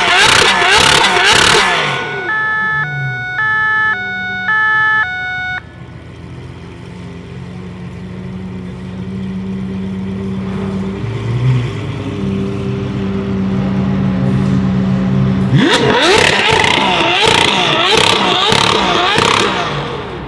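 A tuned performance car engine revving hard, then settling to a low steady idle that slowly grows louder, then blipped up with a quick rise in pitch and revved hard again about sixteen seconds in. Just after the first revs comes a few seconds of short alternating two-note tones.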